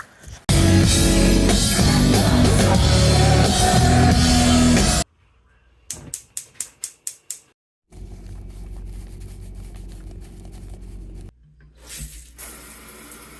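Loud rock music with drums, cut off abruptly after about four and a half seconds. Then a quick run of about seven sharp taps, followed by a steady low hum lasting about three seconds.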